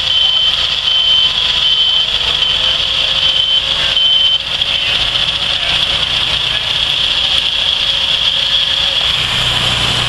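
Portable sawmill engines running steadily, with quick repeated high warning beeps that stop about four seconds in, after which a steady high tone carries on over the engine drone.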